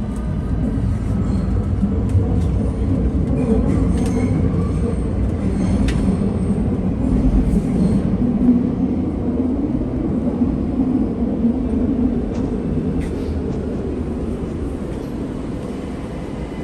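Train running on rails: a steady, low rumble that comes up quickly at the start and slowly fades, with a few faint clicks.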